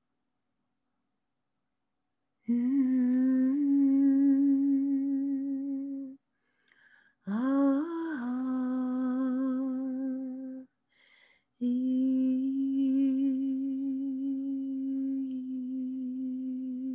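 A woman humming three long sustained notes on about the same pitch, each with a slight waver, the second starting with an upward slide, with short breaths in the gaps between them.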